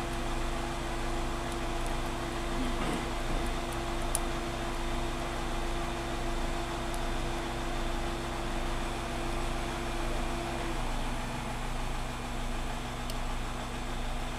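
Steady hum of a small motor running, with a few faint ticks about four seconds in; one of its tones drops out about eleven seconds in.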